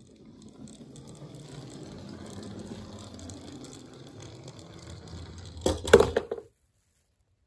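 Die-cast Tomica toy car rolling down a wooden ramp, its small wheels making a steady low rumble on the wood, then a quick cluster of sharp clacks near the end as it drops and tumbles into a tray of foam.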